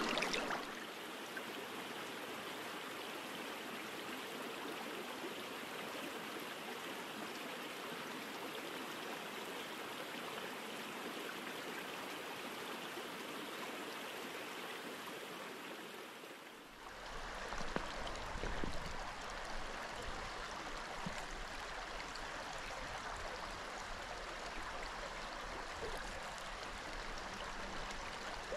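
Small rocky brook trout stream flowing: a steady rush of running water. About seventeen seconds in it changes suddenly to a fuller, deeper rush with a few brief bumps in loudness, then stays steady.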